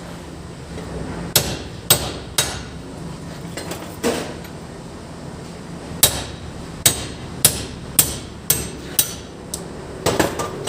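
Hammer striking metal in sharp, ringing blows: three in quick succession, one more, then a steady run of about two a second from about 6 seconds in, ending in a quick flurry, knocking a part free.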